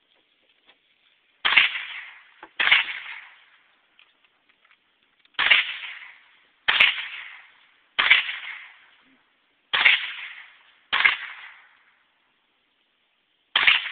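Eight gunshots fired at an irregular pace, some about a second apart and others two or three seconds apart. Each shot is sharp and trails off over about a second.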